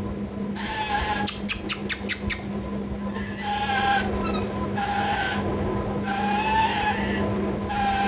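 Indian ringneck parakeets giving about five short, raspy chattering calls, with a quick run of about six sharp clicks about a second in. A steady low hum runs underneath.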